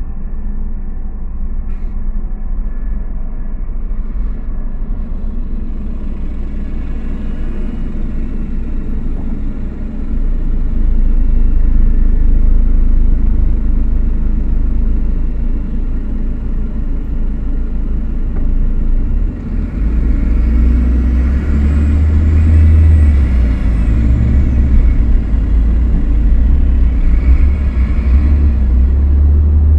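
A car driving in slow city traffic: a steady low engine and road rumble. It grows louder about ten seconds in, and again about twenty seconds in, when a rushing hiss joins it as the car moves off along an open street.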